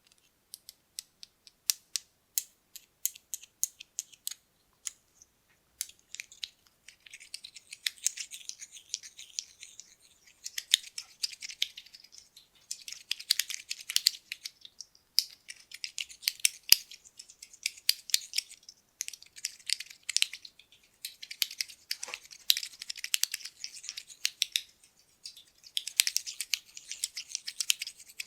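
Buttons handled close to the microphone: first separate light clicks, about two or three a second, then from about six seconds in a dense clicking rattle that comes in repeated bursts of a second or two, as the buttons are shaken or stirred together.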